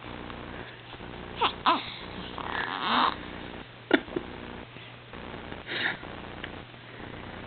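Newborn baby's small squeaky vocal sounds and sniffly, breathy huffs, the loudest breathy burst about three seconds in. A steady low hum runs underneath.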